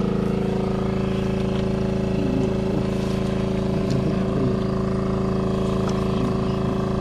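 Motor water pump running at a steady speed with an even, unchanging hum, pumping water out to drain the stream.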